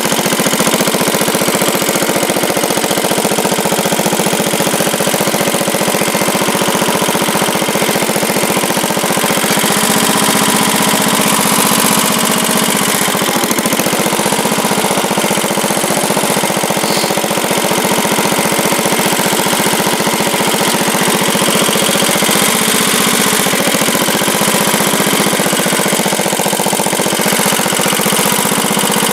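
1967 Sears Suburban 10 garden tractor's engine running steadily, loud and close.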